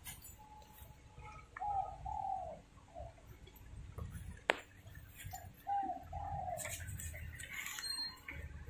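Bird calls: short, mid-pitched notes in a couple of groups, three about two seconds in and more about six seconds in. A single sharp click sounds about four and a half seconds in.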